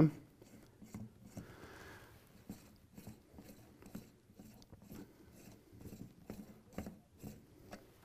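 Faint scraping and small clicks of a coffee leveler spun by hand on the ground coffee in an espresso portafilter, flattening the coffee bed.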